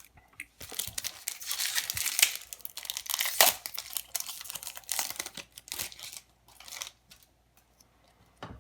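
Foil wrapper of a Magic: The Gathering Modern Horizons 2 set booster pack being torn open and crinkled by hand. The irregular rustling runs for about six seconds, then it dies down.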